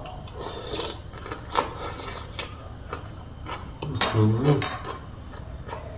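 Close-up eating sounds: a metal spoon scraping and clinking against a plate of rice noodles and greens, with chewing of water spinach, and a short low hum of voice about four seconds in.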